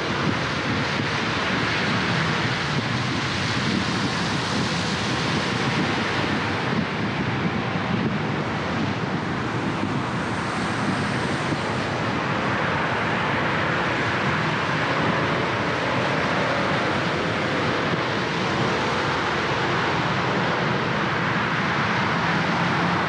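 Steady road noise of a car driving on wet city streets: a continuous hiss of tyres on rain-soaked asphalt mixed with the sound of surrounding traffic.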